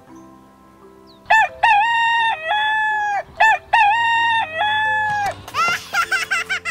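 Rooster crowing twice, each a long, loud cock-a-doodle-doo, over soft background music. Near the end comes a quick run of short, high-pitched chattering calls.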